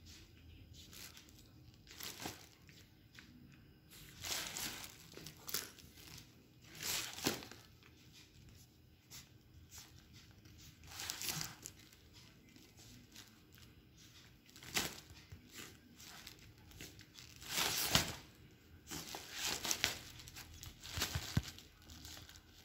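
Cardboard and paper packaging crinkling and rustling in irregular bursts as a cat bites and paws at it, with a few sharper scrunches.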